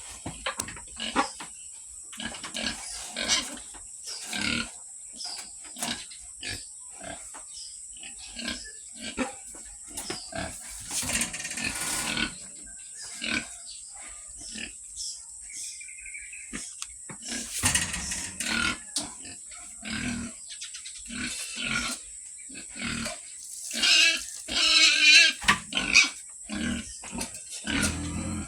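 Pigs, a boar with a sow at mating, grunting in many short, irregular bursts, with a louder, higher squealing stretch near the end.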